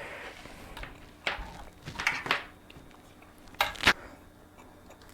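Objects being moved around and set down on a workbench: scattered knocks and clatters, the loudest pair about three and a half seconds in.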